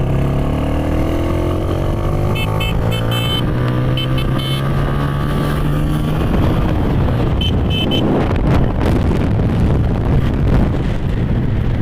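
Motorcycle engine running while riding, rising in pitch as it picks up speed over the first few seconds. Short high beeps come in twice, and about halfway through the engine tone gives way to a rough rush of noise.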